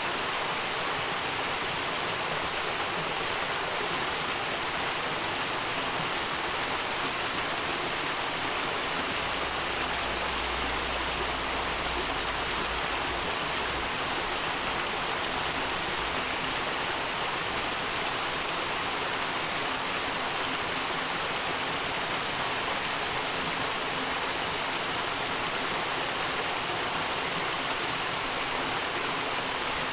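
Small wild mountain stream rushing and splashing: a steady, even hiss of running water.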